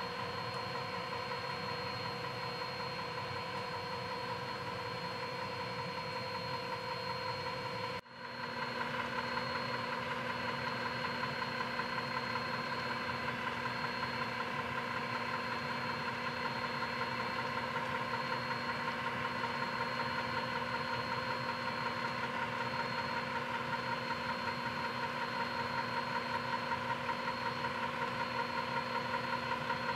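HO scale model train running: a steady engine-like hum with several held tones. It breaks off for an instant about eight seconds in and resumes with a slightly different pitch.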